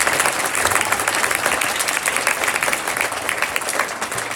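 Audience applauding, a dense patter of many hands clapping that slowly fades near the end.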